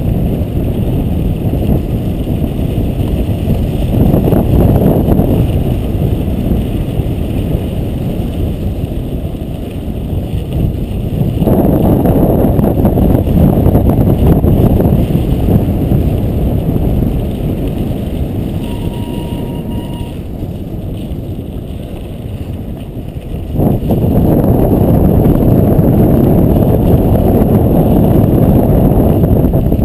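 Heavy wind buffeting and road rumble on a small action-camera microphone during a ride along a snow-dusted dirt road. It gets suddenly louder at about eleven seconds in and again near the end.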